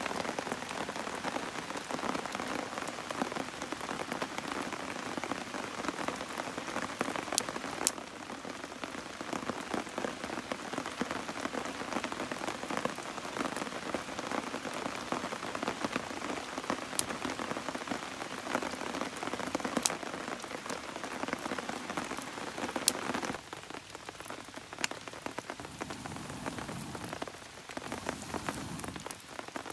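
Steady rain falling and pattering on a surface, with a few scattered sharp ticks; it eases a little about three-quarters of the way through.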